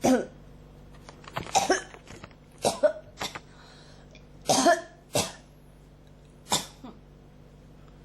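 A person coughing in a fit: about seven harsh coughs, singly and in quick pairs, spread over several seconds.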